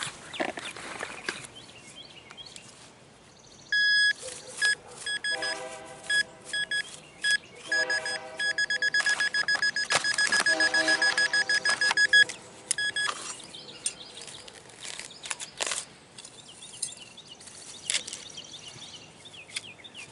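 Metal detector beeping over a target: short bursts of a high steady tone, with a fast run of rapid beeps in the middle, and some lower tones pulsing along with them.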